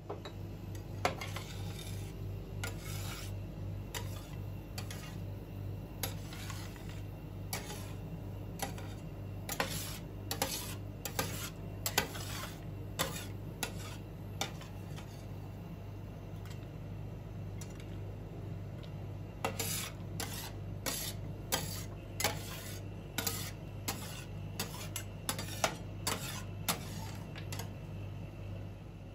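Metal spatulas scraping and clinking on a stainless-steel rolled-ice-cream cold plate as the freezing cream mix is spread and scraped up, in many short strikes that come thickest in two busy spells. A steady low hum runs underneath.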